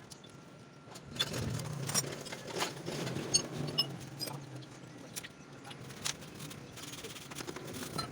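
Metal tools and engine parts clinking and clanking as they are handled, a burst of ringing metallic clicks over a low rumble starting about a second in, then sparser clicks.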